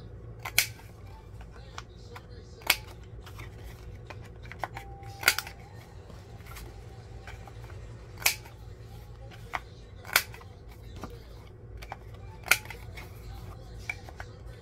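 Sharp clicks of a paper-cutting tool rounding the corners of card-stock journal cards: about six loud clicks a few seconds apart, with fainter ones between, over a steady low hum.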